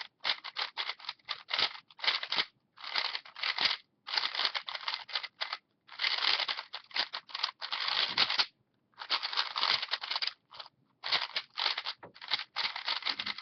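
MoYu AoLong GT 3x3 speed cube turned rapidly by hand: runs of fast plastic clicking and clacking broken by short pauses. The cube is fresh out of the box and not yet lubricated.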